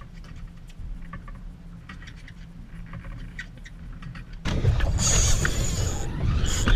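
Boat engine running steadily with a low drone. About four and a half seconds in, a louder rushing noise suddenly cuts in over it.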